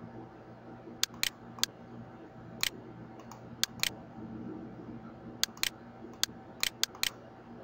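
Computer mouse button clicking: about a dozen sharp clicks at irregular intervals, several in quick pairs, over a faint steady hum.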